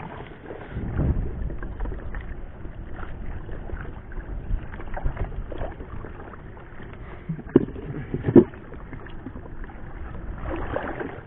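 Knocks and rubbing of gear being handled in a small paddled fishing boat, over a low rumble of wind on the microphone; two sharp knocks come a little past halfway.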